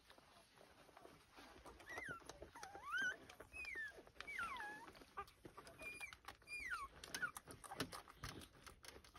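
Two-week-old Lancashire Heeler puppies squealing: a run of short, high squeaks that glide up and down, mostly between about two and seven seconds in. Under them come soft clicks and scuffling as the hungry pups jostle to suckle from their mother.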